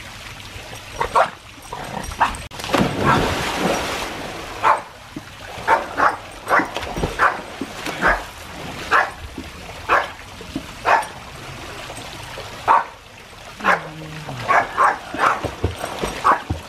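Small terrier barking over and over in short, sharp barks, about one a second. About two and a half seconds in, a big splash of a person jumping into a swimming pool.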